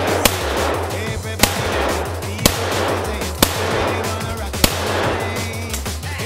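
Five rifle shots fired at a steady pace, about one a second, over music with a heavy bass line.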